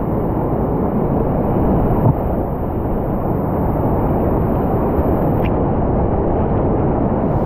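Steady roar of whitewater rapids heard from a kayak running through them, dull and muffled.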